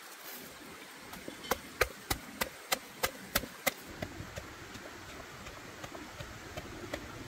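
A blade chopping: about eight sharp strikes, roughly three a second, starting about a second and a half in, then lighter, softer knocks over a steady hiss.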